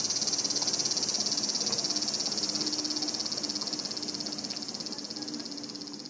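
Cicadas singing in a tree: a loud, dense, high-pitched buzz with a fast, even pulse, slowly fading over the last few seconds.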